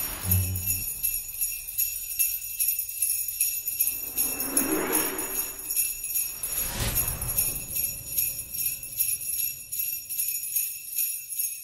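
Sleigh bells jingling steadily, with a soft low thud just after the start and two whooshes near the middle.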